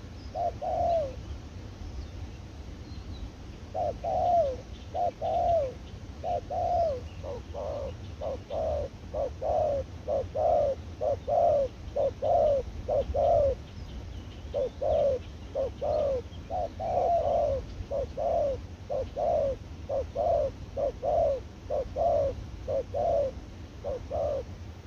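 Spotted doves cooing: repeated phrases of low, soft coos, one after another, with a pause between about one and four seconds in and a short break near the middle. A low steady rumble runs underneath.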